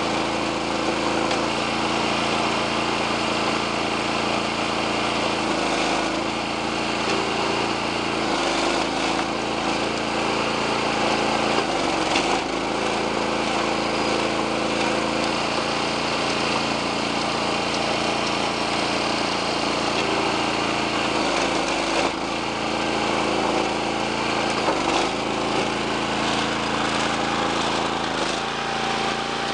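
Homemade hydraulic log splitter's motor and pump running steadily. Its pitch sags briefly about six times as the ram loads up pushing log rounds through the wedge, with a sharp crack of wood splitting twice.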